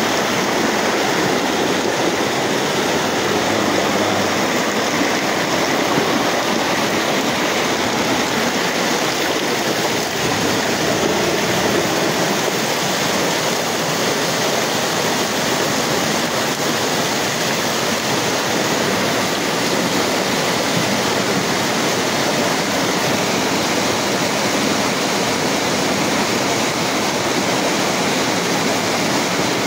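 Muddy floodwater rushing in a torrent through a street: a steady, unbroken rush of water.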